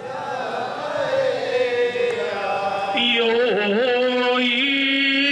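Men chanting a traditional Japanese shrine ritual song in long, drawn-out notes that waver and bend in pitch. About three seconds in, a single voice takes up a steady held low note.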